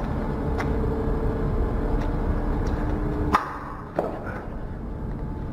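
A steady low rumble and hum with a few faint clicks. A sharp knock comes about three seconds in, after which the hum stops and it turns quieter, and a second knock follows a moment later.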